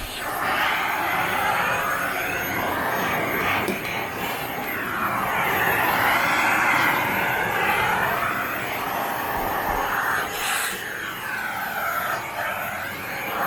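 Panasonic paper-bag canister vacuum cleaner running with its nozzle. The pitch of the suction rises and falls as the nozzle is moved about. A short, sharp, hissing noise comes about ten seconds in.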